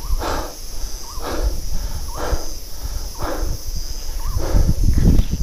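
Tropical forest insects keeping up a steady high drone, with a short call or rasp repeating about once a second.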